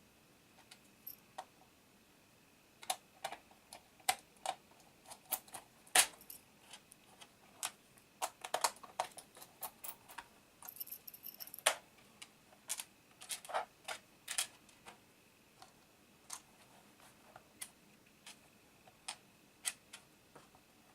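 Irregular small clicks and taps of plastic and metal as a laptop's case parts, screws and tools are handled, with a brief rattle about halfway through. A faint steady high whine sits underneath.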